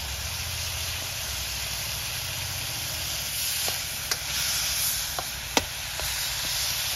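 Pork pieces sizzling in a hot wok in teriyaki sauce and sesame oil. From about four seconds in, a metal spatula stirring the meat adds a few sharp clinks and scrapes against the pan.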